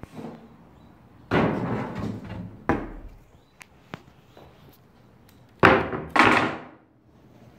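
Several loud knocks and thuds of wooden boards being handled and set down. There is one about a second and a half in, a sharp knock near three seconds, and two more close together near six seconds, each dying away quickly.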